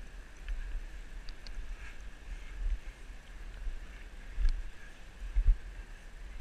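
Wind buffeting the microphone as a low rumble, with stronger gusts about four and a half and five and a half seconds in, and a few faint clicks.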